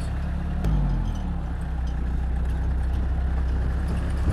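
4x4 vehicle's engine running steadily with a low drone. About a second in there is a knock and the engine note drops, then it settles back into a steady hum.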